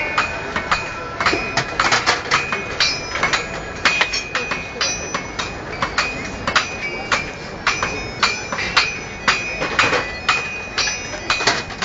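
Blacksmiths' hammers striking metal on anvils: an irregular run of sharp, ringing metallic blows, about two or three a second.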